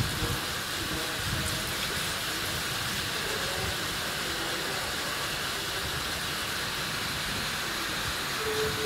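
Steady hiss of water spraying from the Shinkansen track's snow-melting sprinklers.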